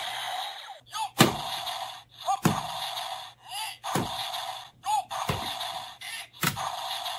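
Plastic DX Zyuohger cube toys being stacked onto one another: five sharp plastic knocks, about one every second and a half, over a thin, choppy high-pitched background that cuts in and out.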